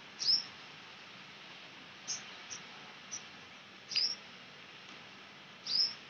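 Short, sharp, high-pitched chirps from a small animal, about six at irregular intervals, each dropping quickly in pitch, over a faint steady outdoor hiss.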